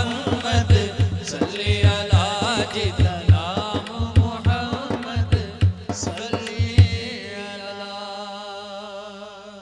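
Men singing a naat with a drum keeping a steady beat; about seven seconds in the drum stops and a single voice holds a long wavering note that fades out.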